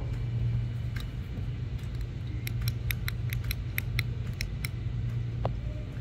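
Steady low hum of an idling engine, with a quick run of about ten short high chirps starting about two and a half seconds in and lasting about two seconds.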